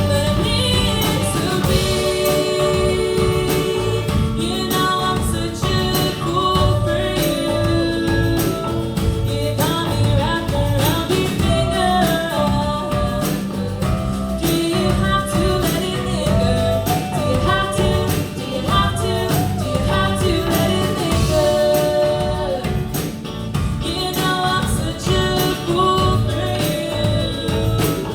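A song: singing over instrumental backing with a steady beat.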